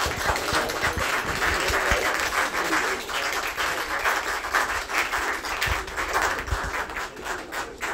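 Audience applauding: many hands clapping at once in a dense run that thins a little toward the end.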